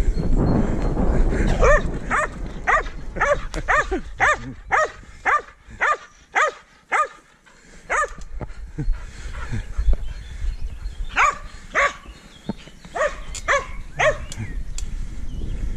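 Border collie barking repeatedly, about two barks a second, in two runs with a short pause between them. Wind and rolling noise from the moving bicycle can be heard at the start and end.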